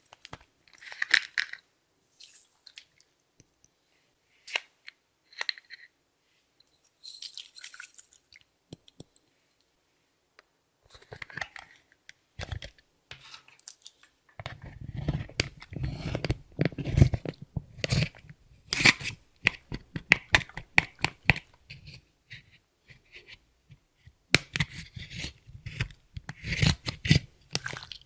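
Hands working clear slime mixed with makeup and glitter, making sticky clicks, pops and crackles. The sounds are sparse at first and turn dense, with a fuller squelch, about halfway through.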